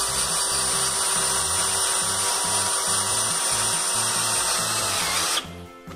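Cordless drill running at a steady speed, its spinning metal accessory grinding against rusty steel, and stopping abruptly about five and a half seconds in. Background music with a steady beat plays underneath.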